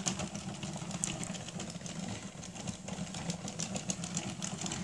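Addi Express knitting machine being cranked by hand: a steady, fast clatter of its plastic needles clicking round.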